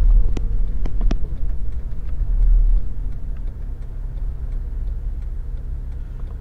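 Inside the cabin of a 2007 Honda Civic Type R (FD2) under way: low rumble from its K20A four-cylinder engine, easing off about three seconds in. A few sharp knocks in the first second or so, with fainter ticking after, are the chattering of the aftermarket limited-slip differential when turning under throttle.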